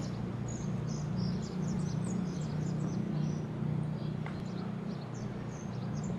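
Small birds chirping in many short, high calls over a steady low hum.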